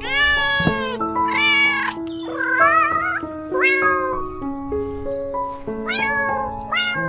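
A cat meowing about six times, each meow short and bending in pitch, one near the middle wavering up and down, over background music of slow held notes.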